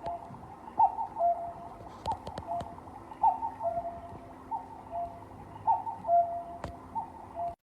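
Kendal MX015-2 wooden cuckoo clock calling its falling two-note cuckoo about six times, roughly one call every 1.2 seconds, with faint clicks between calls. The sound cuts off suddenly near the end.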